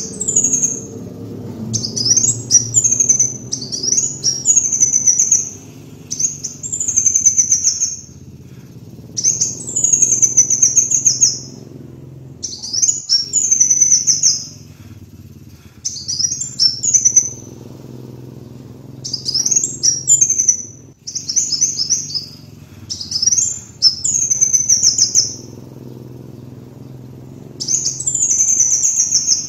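Kolibri wulung sunbird singing: high, thin song phrases, each a quick upward sweep running into a fast trill, repeated about ten times with short pauses between them, over a faint low hum.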